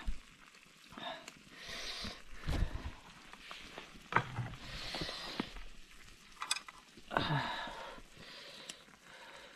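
Ingredients being stirred in a pot of simmering hotpot broth: several short scraping, sizzling spells with scattered clinks and knocks against the pot.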